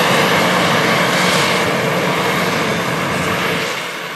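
Claas Jaguar 960 self-propelled forage harvester chopping corn, its Mercedes-Benz six-cylinder engine and chopping gear making a steady, dense mechanical drone with a low hum, with the tractor hauling the silage trailer running alongside. The sound fades down over the last second or so.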